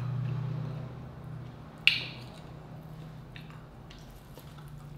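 Mouth sounds of someone eating sea urchin roe with rice: a closed-mouth hummed "mm" of enjoyment that fades over the first second or so, then a sharp wet lip smack about two seconds in and a few softer mouth clicks.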